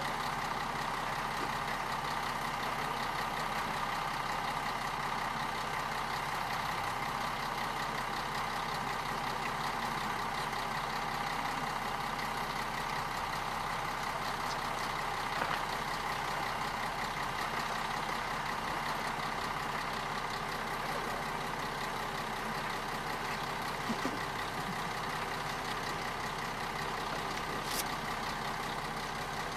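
Steady steam hiss from a standing German steam locomotive as it is slowly turned on a turntable, with a few faint knocks along the way.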